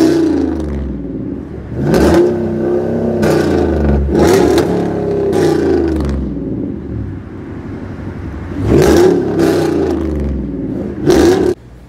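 Pickup truck's exhaust, newly fitted with 5-inch tips, heard from inside the cab as the engine pulls through several surges of acceleration, each note swelling and falling away. The exhaust has a deep, clear tone.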